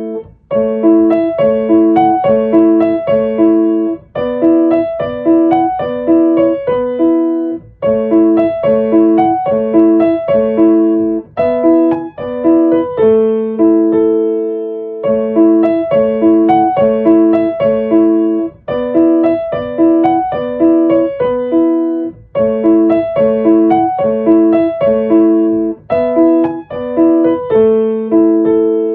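Solo piano music: a repeating figure of notes played in short phrases, with a brief break about every three and a half seconds.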